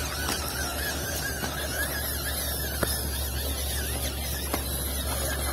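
Electric motor and drivetrain of a scale RC Land Rover Defender D90 crawler whining as it drives over gravel, the whine wavering up and down in pitch with the throttle, over a steady low rumble. A couple of sharp clicks sound about three and four and a half seconds in.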